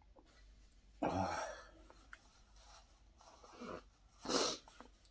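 A man coughs once about a second in, then blows his nose hard into a tissue near the end, his nose running from eating very spicy kimchi.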